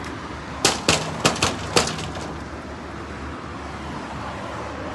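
Knocking on a door: a quick run of about five sharp raps about a second in, over a steady background hum.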